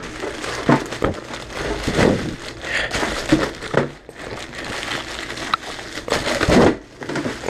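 Plastic packaging crinkling and rustling as it is handled by hand, with scattered small crackles.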